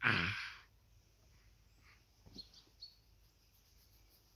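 A person's short breathy vocal sound, falling in pitch, right at the start; then faint small-bird chirps, twice, about halfway through.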